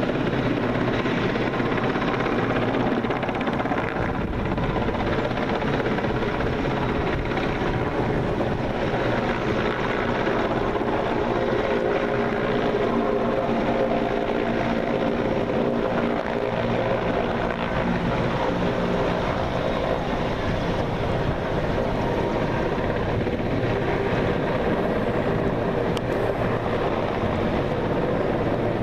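Military transport helicopter of the Mil Mi-8/Mi-17 type flying past, its rotor and turbine noise running steadily and loudly.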